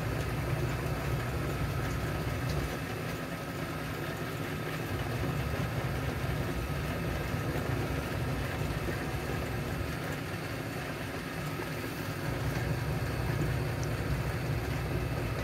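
Steady low mechanical hum, as of a motor or engine running, at an even level throughout.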